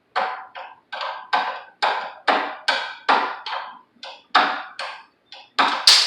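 Hammer tapping on metal: about fourteen sharp blows at roughly two to three a second, each ringing briefly, with the last blows loudest.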